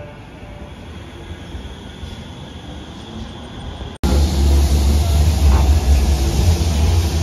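Bombardier M5000 Metrolink trams on street track. One draws into a stop with a faint high whine over the running noise. After a cut about four seconds in, another passes close by, much louder, with a deep rumble.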